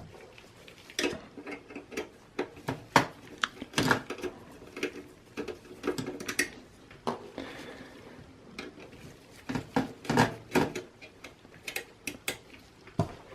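Irregular small clicks, taps and clatters of screws and metal and plastic parts being handled inside a desktop computer case, about one to three knocks a second.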